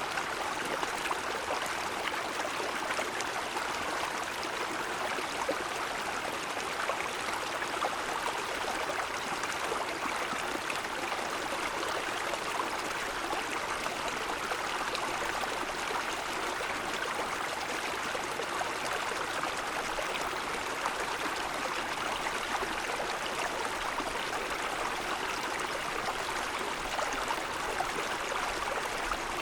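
Mountain stream flowing over snow-covered stones: a steady rushing and gurgling of water that does not change.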